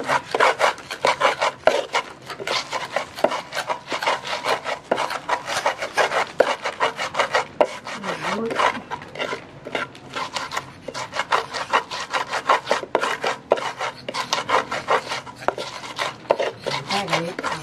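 Pestle grinding and scraping a spice paste of coriander seeds, shallots, garlic and turmeric against an unglazed clay mortar (cobek), in rapid repeated rubbing strokes. The paste is still coarse and not yet smooth.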